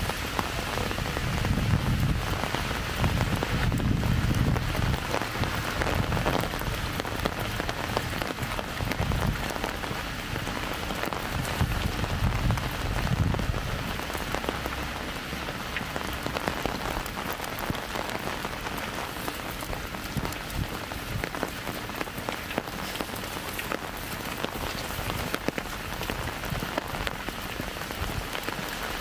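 Steady light rain, with many sharp individual drops ticking close by. A low rumble comes and goes during the first half.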